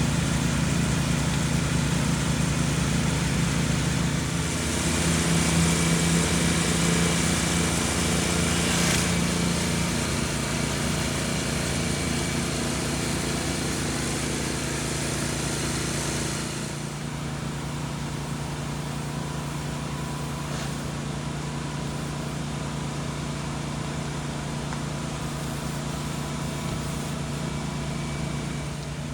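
Small petrol engine, likely a gas pressure washer, running at a steady speed. A high hiss, like spray from the wand, rides over it for roughly the first half, then stops and leaves the engine hum on its own.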